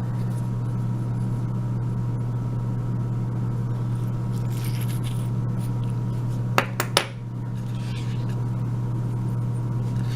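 A steady low electrical hum, with three sharp little metallic clicks close together about six and a half seconds in and faint scraping around them. These are small metal lock parts being handled while the euro cylinder is taken apart with a follower.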